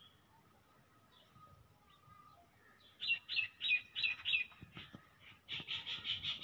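Bird calling: a run of about five short, falling chirps, then after a short gap a faster, evenly paced run of chirps starting about five and a half seconds in.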